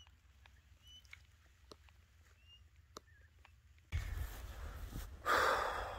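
Camera handling noise: loud rustling and scraping as the camera is picked up and rubbed against a backpack and padded jacket, starting suddenly about four seconds in. Before that, low outdoor quiet with a few faint high chirps and small ticks.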